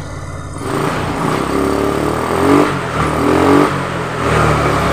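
Honda Vario 125 scooter's single-cylinder engine being revved, rising and falling twice, about a second apart. It runs and revs cleanly with the fault repaired: a shorted speedometer wire, which had been blowing the fuse and setting code 12.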